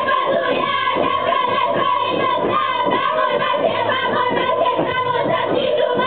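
Hungarian village string band of lead violin, kontra and double bass playing a Méhkerék dance tune. The violin melody runs over steady rhythmic accompaniment strokes.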